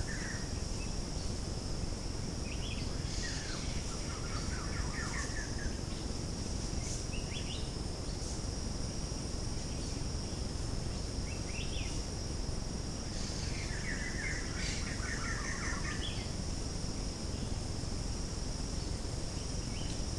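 Forest ambience: a steady high-pitched insect drone, with short chirping bird calls several times, the longest a little after three seconds and again around thirteen seconds, over a constant low hiss.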